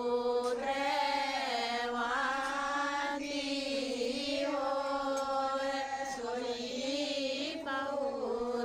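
Vedic mantras chanted by a single voice in long held notes, the pitch rising and falling slowly.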